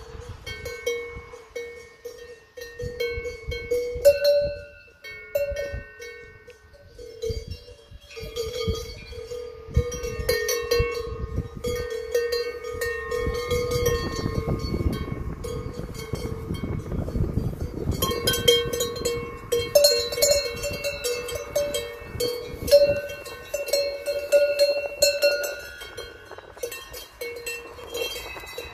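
Metal cowbells hung from the necks of cows clanking irregularly as the cows walk. At least two bells of different pitch ring against each other throughout.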